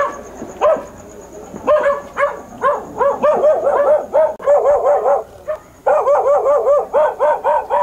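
A dog barking in long rapid runs, about three or four barks a second, with a short pause partway through.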